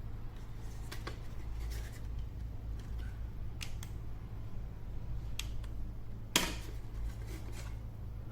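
Several short, sharp clicks and taps of small plastic parts being handled, the loudest about six and a half seconds in, over a steady low hum.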